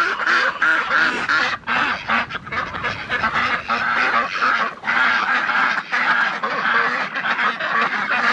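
A flock of domestic ducks, Indian runners and crested ducks, quacking continuously, many short overlapping calls with no break.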